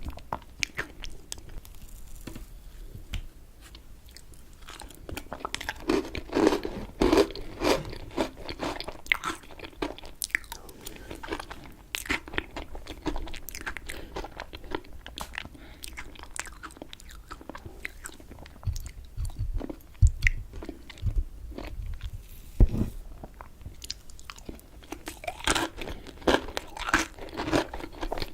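Close-miked chewing and biting of raspberry cheesecake: a steady run of wet mouth clicks and smacks, with a few low thuds about two-thirds of the way through.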